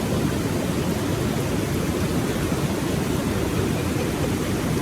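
Steady rush of water pouring through the rapids of Popa Falls on the Okavango River, a dense, even roar heaviest in the low range.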